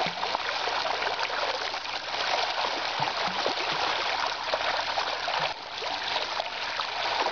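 Many small splashes at the water's surface, fast and continuous: a shoal of small fish skittering and leaping as golden dorado feed on them.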